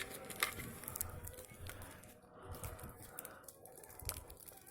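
Faint scattered clicks and rustling: handling noise from objects, such as paper or plastic, being moved about.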